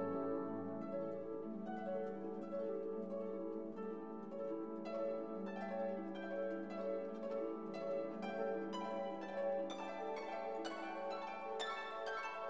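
Background music: plucked notes over a held low note, with the notes coming quicker after about five seconds.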